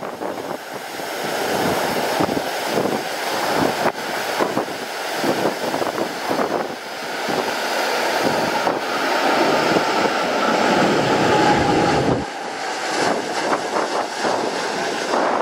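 Strong gusty wind buffeting the microphone, with a jet airliner passing on landing approach. Its engine whine slowly falls in pitch around the middle.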